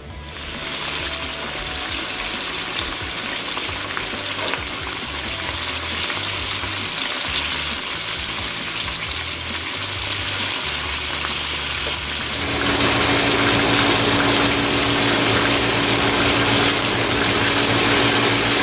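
Flour-dredged white fish fillets frying in olive oil in a pan, a steady crackling sizzle. About twelve seconds in, the sizzle gets louder and a steady low hum joins it.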